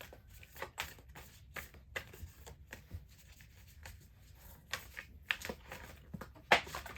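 Deck of oracle cards being shuffled by hand: irregular papery flicks and clicks of the cards, with one sharper snap near the end.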